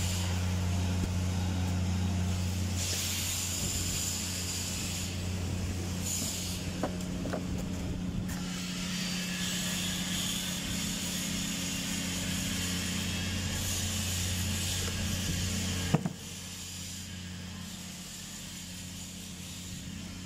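Steady low machine hum with a hiss that comes and goes. There is a single sharp knock about three-quarters of the way through, after which the background is a little quieter.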